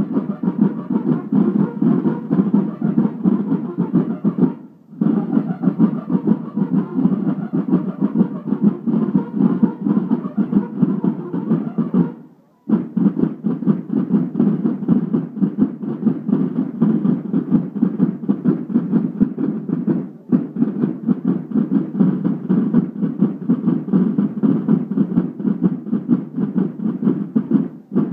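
A line of marching snare drums played in unison, a fast steady rhythmic pattern broken by a short pause roughly every seven or eight seconds.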